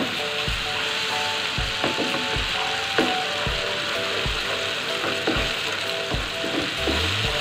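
Blended chili spice paste sizzling as it fries in oil in a nonstick frying pan, stirred with a spatula that scrapes and knocks against the pan about twice a second.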